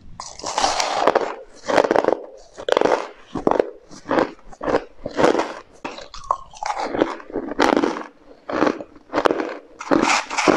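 Carbonate ice being bitten and chewed, a run of crunches about one a second.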